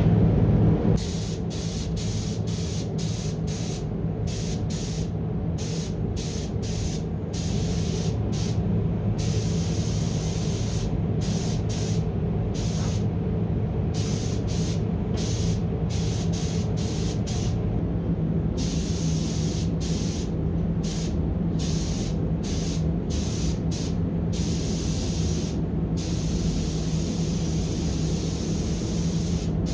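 Paint spray gun hissing in repeated short passes, cut on and off every second or so, as sealer is sprayed. Underneath runs the steady hum of the spray booth's heating, described as a little bit loud.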